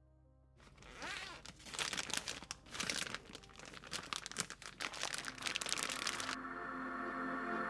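Crinkling, crunching handling noise, like packaging or food being worked by hand in a kitchen, starting about half a second in; background music fades in toward the end.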